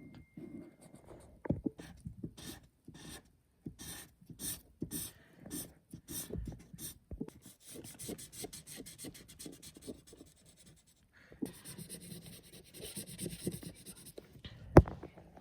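Drawing strokes on paper: a run of short scratchy strokes, about two a second, then a few seconds of continuous scribbling from about eleven seconds in. A single sharp click near the end is the loudest sound.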